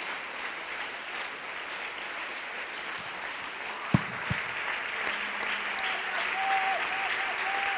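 Church congregation applauding, a steady continuous clapping offered as praise. About four seconds in come two sharp thumps, and from about six seconds a faint held note with short breaks sounds under the clapping.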